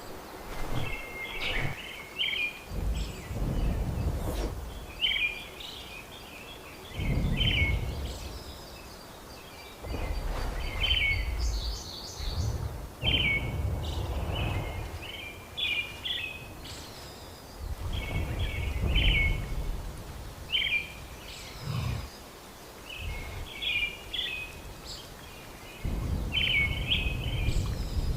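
Birds calling in short, repeated chirping phrases every second or two, over a low rumble that swells and fades several times.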